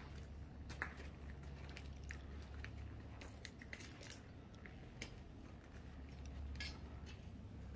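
Faint footsteps crunching and scraping on grit over a concrete floor: irregular small clicks and crunches, over a steady low hum.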